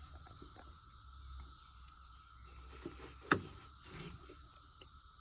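Quiet handling of a multimeter and its test leads, with one sharp click a little over three seconds in and a softer click just before it, over a faint steady high-pitched whine.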